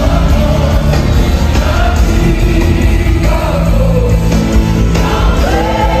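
Live gospel worship music from a choir and worship singers over a full band, played loud through an arena sound system with a heavy bass.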